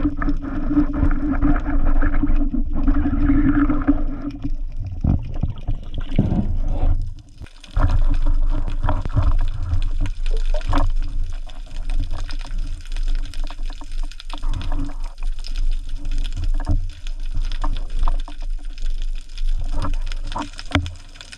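Water sloshing and bubbling against the camera underwater, with many small clicks. A steady hum runs through the first few seconds and stops.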